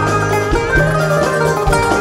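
Arabic ensemble playing an instrumental passage, with a qanun's plucked melody to the fore over held bass notes and steady drum strokes.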